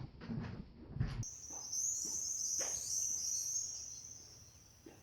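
A few low thumps, then, about a second in, a songbird's high rapid warbling song that runs for about three seconds and fades.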